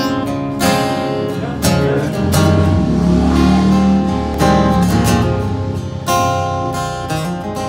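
Acoustic guitar playing an instrumental intro, with chords struck every second or two and left to ring.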